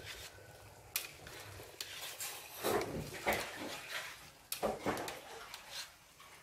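Wire-mesh skimmer clinking and scraping against an aluminium pot as boiled clam shells are scooped out of the water, with a few sharp metallic clicks.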